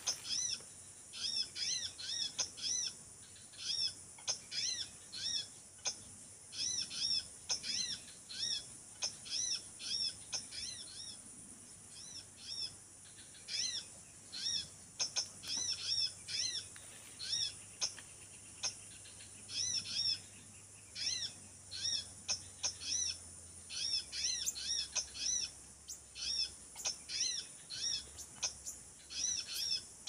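Small birds chirping: high, quick notes in clusters of three to five, repeating about every second, over a faint steady high hiss.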